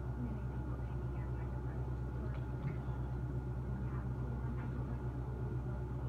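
Amana packaged terminal air conditioner running with a steady low hum.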